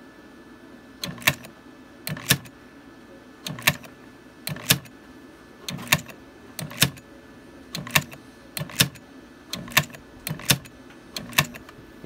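Dual-power automatic transfer switch's changeover mechanism clacking as it operates: a sharp double click with a low thump about once a second, over a faint steady hum.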